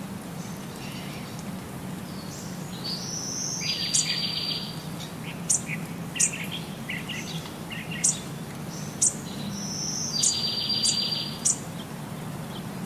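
Birds chirping and singing: sharp high chirps, and a rising whistle followed by a buzzy trill that comes twice, about seven seconds apart, over a low steady hum.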